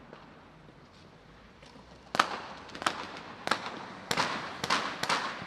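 Battlefield gunfire. After a quieter first two seconds, single shots crack out about every half second, each with an echoing tail, about seven in all.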